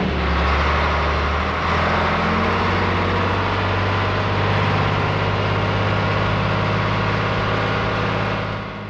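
Heavy DAF diesel trucks running under load as they haul a heavy trailer, a steady low engine drone.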